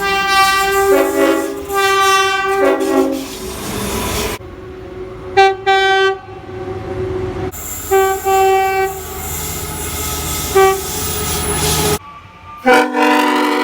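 Train horns sounding in a run of long and short blasts, each a chord of several notes at once. The sound cuts abruptly between separate clips three times, and the last horn, about 13 seconds in, is lower in pitch.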